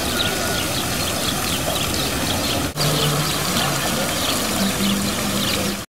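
Water from the jets of Jean Tinguely's mechanical fountain sculptures spraying and splashing into the basin, a steady rush of water.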